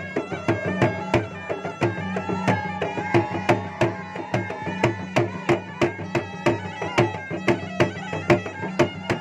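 Makassar gendang drums beaten in a fast driving rhythm with a stick on one head and the palm on the other, while a pui-pui reed pipe plays a wavering, nasal melody over them.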